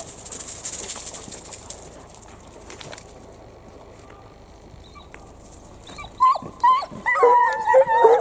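A pack of foxhounds baying, starting with a few short cries about six seconds in and swelling into many overlapping, drawn-out cries near the end. It is the pack giving tongue, the sign of hounds hunting on a fox's scent.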